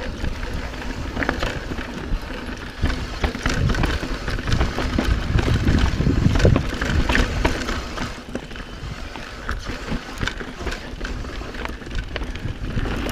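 Mountain bike riding down a dirt singletrack: tyres rumbling over dirt and roots, with many short clicks and rattles from the bike over the bumps, and wind noise on the microphone.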